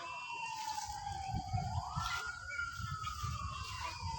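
A wailing siren-like tone that sweeps up quickly and then sinks slowly, repeating about every three and a half seconds, over a low rumbling noise.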